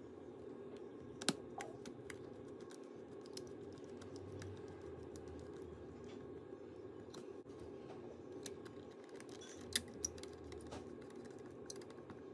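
Faint irregular clicks and ticks of a precision screwdriver on the tiny screws and metal brackets along a MacBook Pro's hinge strip, with one sharper click about a second in and two close together later on, over a steady low hum.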